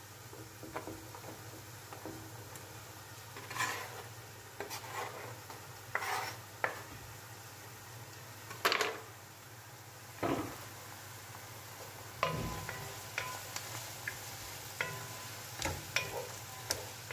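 Carrot and beet strips pushed off a wooden cutting board into a pot, with scattered scrapes and knocks of board and utensil against the pot. In the last third a wooden spatula stirs them as they sizzle with onions in clarified butter, giving a steady frying hiss with many small taps.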